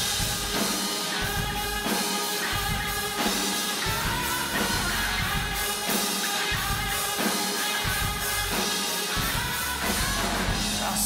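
Live rock band playing a song with acoustic guitar, electric bass, electric guitar and drum kit, with a steady beat.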